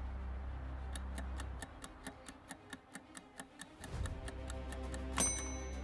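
Countdown clock-tick sound effect, about four ticks a second, over a low music bed that drops out for a couple of seconds in the middle. A short bright chime-like hit sounds about five seconds in.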